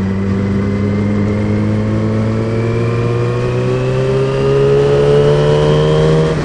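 Motorcycle engine accelerating, its pitch rising steadily for about four seconds, then dropping sharply near the end at an upshift, heard through a helmet headset mic with road and wind noise.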